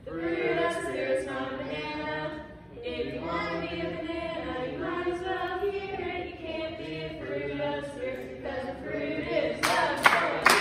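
Group of voices singing a worship song together, with little or no instrumental backing. A few loud, sharp hits come near the end.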